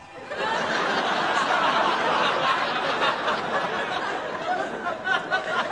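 An audience laughing loudly, breaking out suddenly at the start and holding for several seconds.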